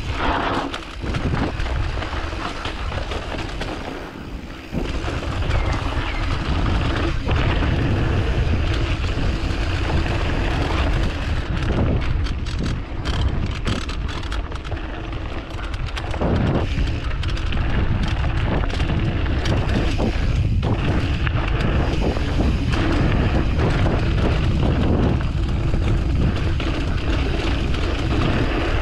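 Wind buffeting a GoPro's microphone during a downhill mountain bike run, over the rumble of tyres on a dirt trail and knocks and rattles of the bike over bumps.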